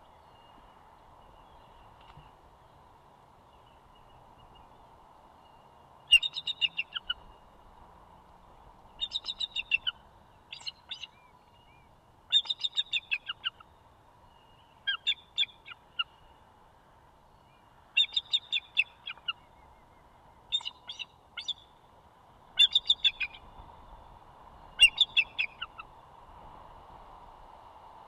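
Adult bald eagle calling: repeated bursts of rapid, high-pitched chittering notes, each about a second long, starting about six seconds in and recurring every two to three seconds, over a faint steady hum.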